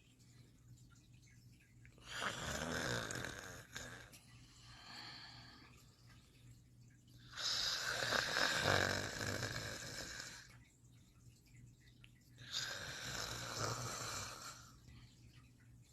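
Snoring: three long, noisy snores about five seconds apart, each lasting two to three seconds, with a fainter breath between the first two.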